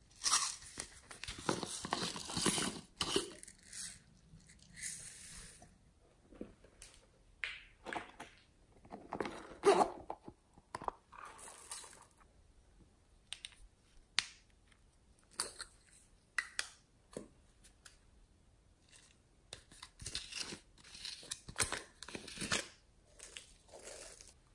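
Small plastic containers being handled by hand: lids twisted and popped open, plastic scraping and clicking, and toppings shaken out of a jar onto slime. It comes as scattered short rustles and clicks with pauses between them.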